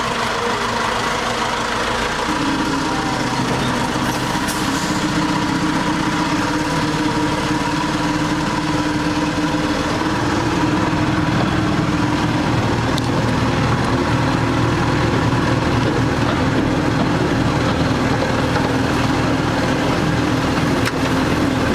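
Diesel engine of a miniature railway locomotive running steadily as the train travels. Its note steps up about two seconds in.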